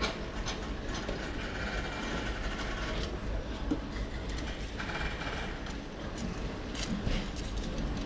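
Passenger railway car rolling slowly along the track, heard from inside a compartment car: a steady low rumble with scattered clicks of the wheels over rail joints.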